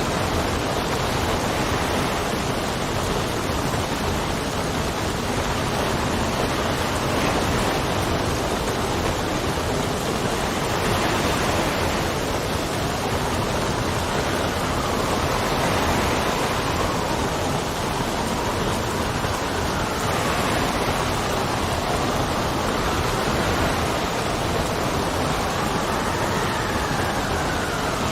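Steady heavy rain with gusting wind, an even rushing hiss. In the second half the wind whistles in faint tones that slowly rise and fall.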